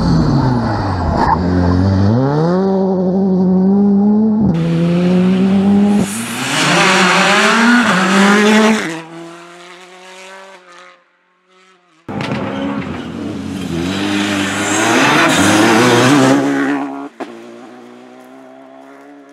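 Rally cars at full throttle, engines revving high and climbing and dropping in pitch through quick gear changes as they go by. The sound comes in several short, abruptly cut passages, two of them fading as the car moves away.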